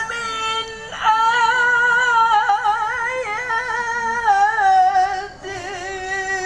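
A man reciting the Quran in the melodic tilawah style, holding long high notes with quick ornamental turns and stepping down in pitch about five seconds in.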